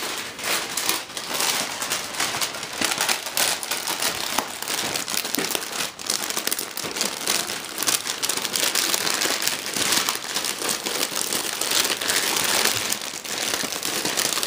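Shiny foil wrapping paper crinkling and tearing steadily as a small child rips open a present by hand.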